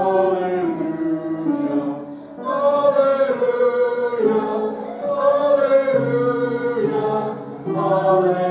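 Church congregation singing a slow hymn in long held notes, phrase by phrase, with short breaths between phrases.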